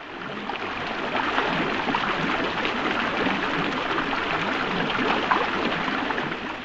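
Running, splashing water, like a small stream or cascade: a steady rush with fine crackling that fades in at the start.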